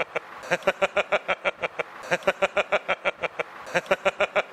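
A man laughing without stopping: long runs of quick, rhythmic 'ha' pulses, several a second, broken by short pauses.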